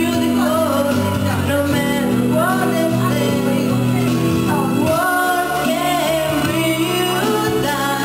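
A young woman singing into a handheld microphone over backing music, her voice sliding between long held notes.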